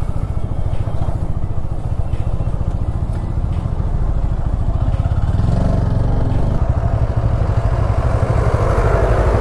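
Motorcycle engine running under way, a steady low pulsing that grows louder from about halfway through.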